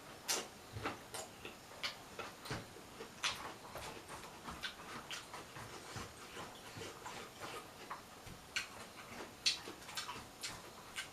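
Close-up eating sounds: irregular wet chewing and mouth-smacking clicks, several a second.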